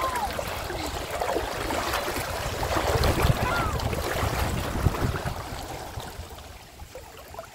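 River water splashing and churning as several people wade through it, with a low rumble under the splashing. It grows quieter near the end.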